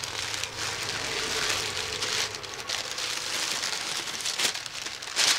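Packaging being opened by hand: continuous crinkling and rustling of paper and wrapping, with a sharper crackle near the end.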